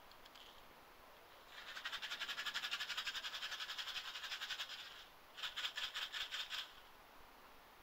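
Airsoft shotgun magazine shaken hard to feed BBs into it, the loose BBs rattling in a fast even rhythm of about ten shakes a second: one long bout of several seconds, then a shorter second bout after a brief pause.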